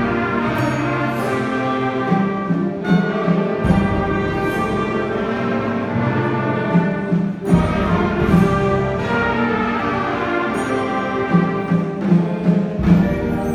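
Orchestral-style instrumental music: sustained chords from a full ensemble, shifting to new chords about every four seconds.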